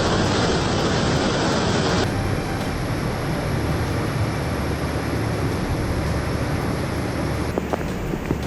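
A loud, steady rushing roar with no clear rhythm. It changes abruptly about two seconds in and again near the end.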